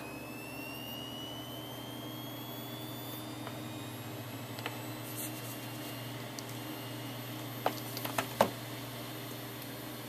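Hitachi Deskstar 400 GB SATA hard drive spinning up after being powered on: a thin whine that rises slowly in pitch as the platters come up to speed, over a steady low hum. A few sharp clicks sound about eight seconds in.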